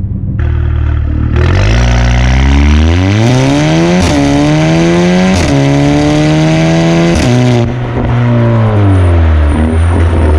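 Turbocharged four-cylinder engine of a 2017 Audi A4 B9 revved through an Armytrix valvetronic cat-back exhaust with its valves open: the pitch climbs and falls back several times, with a few short sharp cracks as the revs turn over, then settles lower before a last blip near the end.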